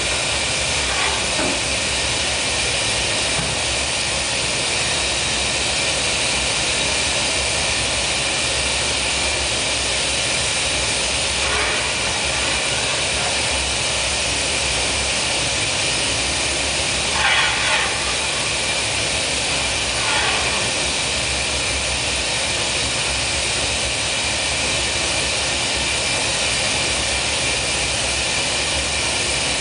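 Steady roar of a glassworks furnace burner, with a few short, louder sounds about twelve, seventeen and twenty seconds in.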